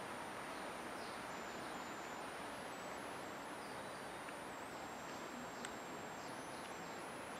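Faint, steady outdoor background noise: an even hiss with no distinct events.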